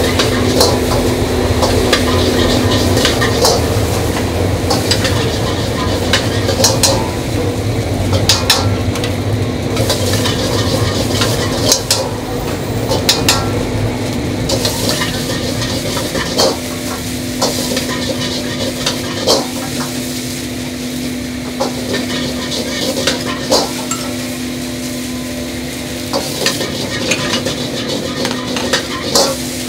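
Fried rice sizzling in a wok while it is stir-fried, the metal ladle repeatedly scraping and clanking against the wok. A steady low hum runs underneath.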